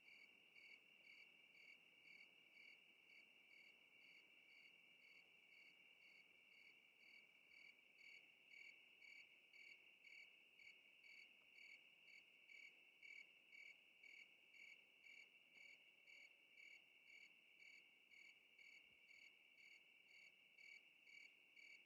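Faint crickets chirping: a steady high trill with a regular pulsing chirp repeating two or three times a second.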